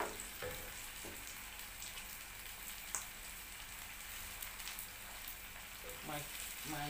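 Onions and red bell peppers frying in oil in a stainless-steel pan while being stirred with a wooden spatula: a steady sizzle with scattered crackles, one sharper crack about halfway through.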